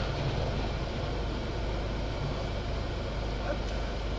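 Steady low rumble heard from inside a stationary car, with traffic passing alongside.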